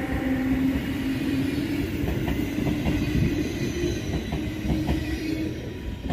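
NS ICMm Koploper electric multiple unit pulling away, its drive giving a steady electric hum. From about two seconds in, a run of wheel clicks over the rail joints can be heard.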